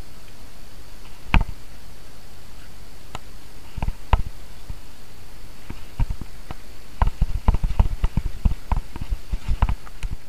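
Norco Team DH downhill mountain bike descending a rough dirt trail: a steady rush of wind and tyre noise with sharp clacks and knocks as the bike rattles over bumps, a few at first, then many in quick succession from about six seconds in.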